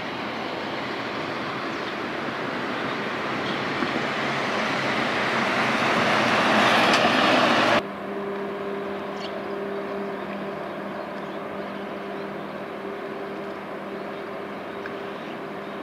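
A broad rushing noise grows steadily louder for about eight seconds, then cuts off abruptly. After that comes a quieter steady machinery hum with two held low tones, the higher one coming and going.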